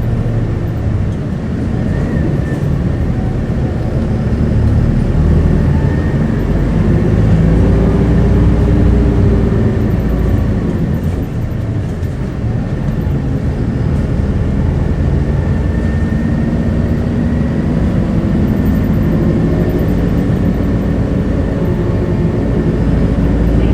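Isuzu Erga city bus heard from inside the cabin while driving: the diesel engine's note rises and falls as the bus accelerates about a quarter of the way in, then climbs again near the end, over a steady low rumble of road and drivetrain noise.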